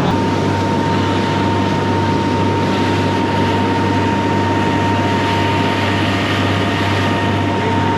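Fishing boat's engine running steadily underway: a constant low drone with a thin steady whine above it, over a haze of wind and water noise.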